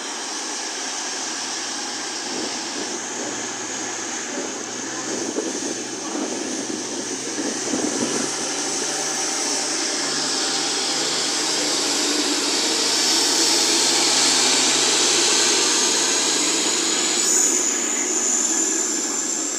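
Class 222 Meridian diesel multiple unit pulling away and passing close by, its underfloor diesel engines running under power. The sound swells towards the middle as the cars go past, and a high whine climbs slowly in pitch in the second half.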